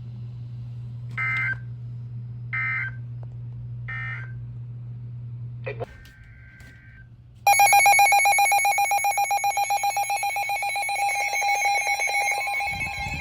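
Emergency Alert System data signal: three short, screechy digital bursts, the end-of-message code that closes a warning, then a click and a longer data burst. About seven seconds in, a loud pulsing electronic alert tone starts and keeps sounding.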